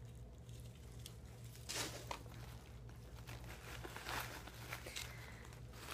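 Quiet, brief rustles of a cloth dust bag and a leather handbag being handled, with the bag's zipper being opened.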